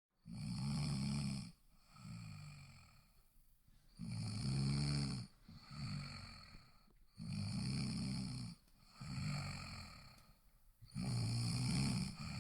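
A person snoring in a steady rhythm, about once every three and a half seconds. Each breath brings a loud, low-pitched snore followed by a softer one, four loud snores in all.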